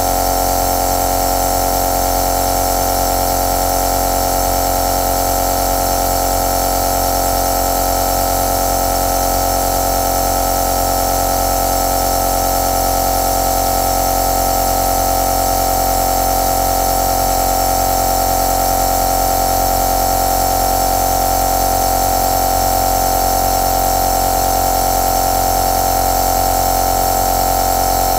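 Compressor nebulizer running: its small air compressor gives a continuous, even mechanical hum with a strong steady tone and no change in speed.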